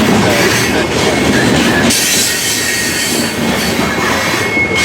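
Grain hopper cars of a freight train rolling past with their brakes on hard: steady rumble and clatter of wheels on rail with a thin, high squeal of brake shoes on the wheels, which grows brighter about two seconds in.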